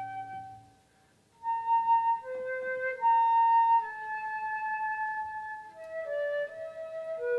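Background music: a slow melody of long held notes, starting again after a short pause about a second in.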